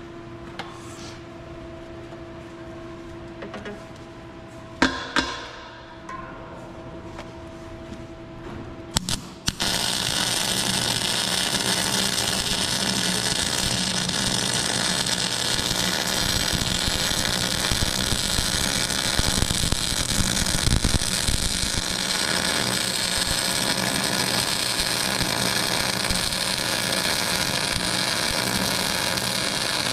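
A welding machine hums, with a couple of knocks. About ten seconds in, an arc strikes and runs on as a steady loud hiss as a weld bead is laid into a gouged-out crack in a speed tiller's steel frame.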